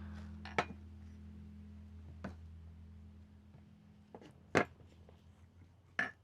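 A low steady hum that fades away over a few seconds, with four short sharp knocks or clicks, the loudest about four and a half seconds in.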